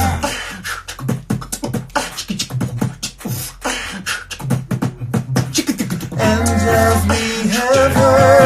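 A cappella vocal group singing. For about the first six seconds mostly vocal percussion (beatboxing) with a low sung bass plays; then close vocal harmonies come back in over the bass.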